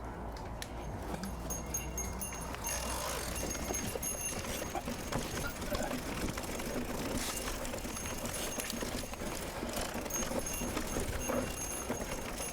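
Mountain bike riding over a rough trail: tyres crunching, with irregular rattling clicks from the bike.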